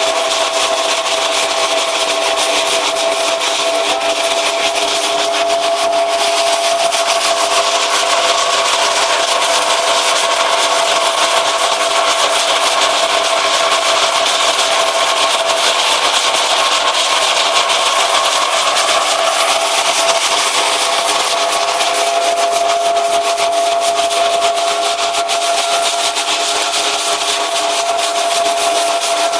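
Hazelnut thresher (patoz) running steadily, its machine hum under the loud rushing rattle of hazelnuts and husks being sucked up through its suction hose and threshed.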